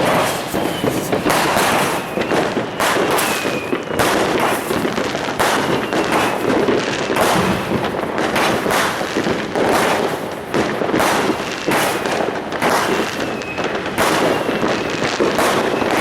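Fireworks going off all around: a dense, unbroken barrage of firecracker bangs and crackles, several a second.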